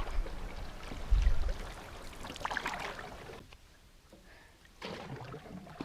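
Canoe paddle strokes in lake water, with splashing and trickling, and a low gust of wind on the microphone about a second in. It falls quieter for about a second past the middle.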